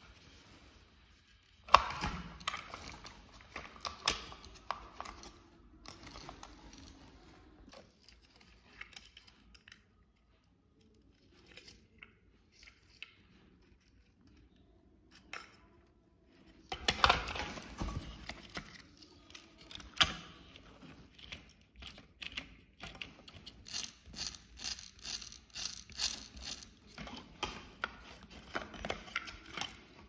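Hard plastic parts of a toy RC tractor being handled and pulled apart: scattered clicks, knocks and scrapes, busiest about two seconds in and again a little past the middle, then a run of quick light ticks toward the end.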